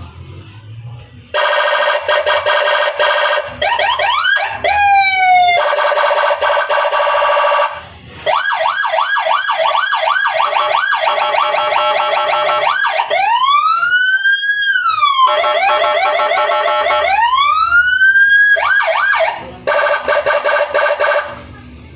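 Electronic police-escort siren cycling through its tones: a rapid warble, quick rising whoops, fast repeated yelping chirps, then two slow rising-and-falling wails. It starts about a second in and cuts off shortly before the end.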